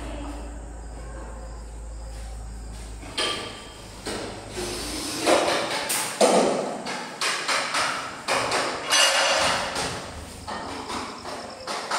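Irregular knocking and tapping, like hammer blows, starting about three seconds in and continuing in uneven clusters. A steady low hum runs underneath at first.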